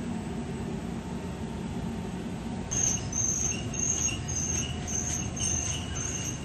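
Amada CNC fiber laser cutting machine running with a steady low hum. About three seconds in, a rapid run of short high-pitched whines begins, two or three a second.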